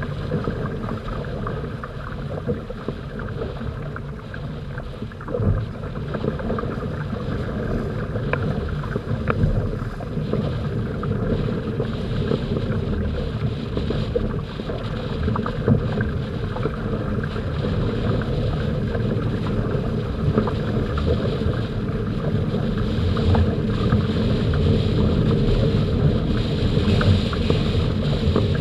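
Wind buffeting the microphone over the rush and splash of water along the hulls of a Hobie Tandem Island trimaran under sail, with a few brief slaps. The noise grows gradually louder toward the end as the boat picks up speed.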